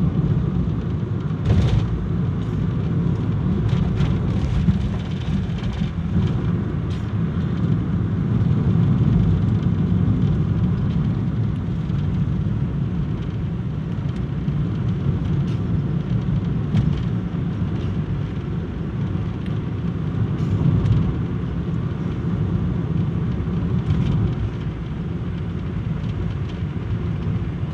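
Steady low rumble of a car driving, engine and road noise heard from inside the cabin, with a few brief clicks now and then.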